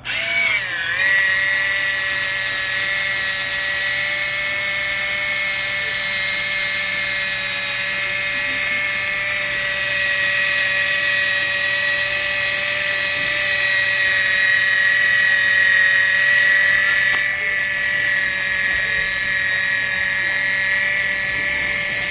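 Kitchen Mama One Touch battery-powered electric can opener running: a steady, high-pitched motor whine that starts abruptly, dips in pitch in the first second as it takes up the load, then holds steady.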